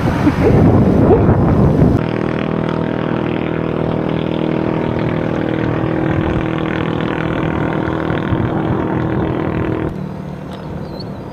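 Wind rushing over the microphone while cycling, then from about two seconds in a steady, unchanging motor hum that drops away near the end.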